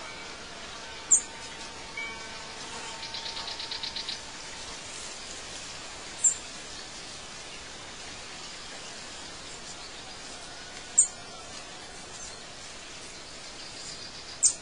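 Birds chirping over a steady background hiss: short, sharp high chirps every few seconds and a fast trill about three seconds in.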